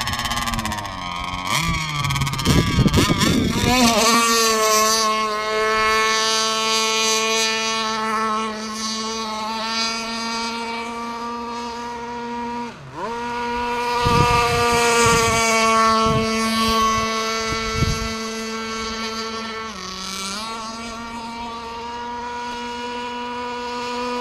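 Zenoah two-stroke gas engine of a freshly tuned 1/5-scale RC speedboat running at speed. It revs unevenly for the first few seconds, then settles into a steady high-pitched run. Its pitch drops briefly twice, about halfway through and again near the end, then climbs back.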